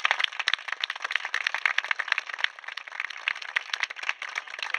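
A small crowd applauding, many hands clapping fast and unevenly.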